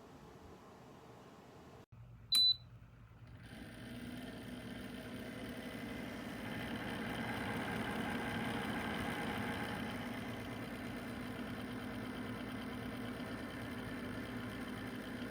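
A single short electronic beep, then the Dreo PTC ceramic space heater's fan starts and runs steadily with a low hum, building up over a few seconds.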